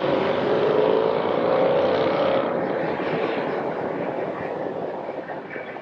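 Jet aircraft engines running loud: a broad roar with a droning tone that starts abruptly and fades gradually over the next few seconds.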